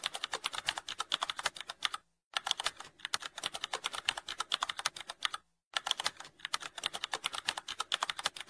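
Computer keyboard typing sound effect: rapid key clicks in runs of two to three seconds, with short breaks about two and five and a half seconds in.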